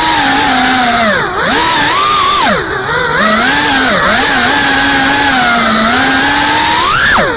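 FPV freestyle quadcopter's motors and propellers whining, the pitch swooping up and down with the throttle. It briefly drops in level twice as the throttle is cut, and sharply rises then falls near the end.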